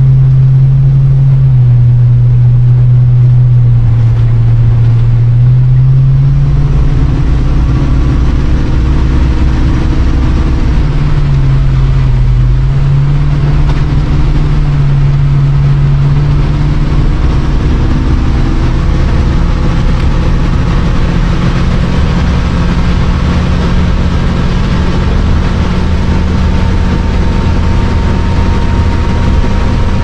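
Cab noise of a 1989 Winnebago Superchief motorhome on the move: its Chevy 454 big-block V8 drones loudly and steadily, its pitch dipping and recovering twice with changes in speed, over road noise.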